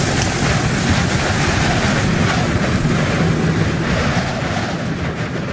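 Animated sound effect of a billowing dust cloud: a loud, steady rushing rumble like strong wind, easing off a little near the end.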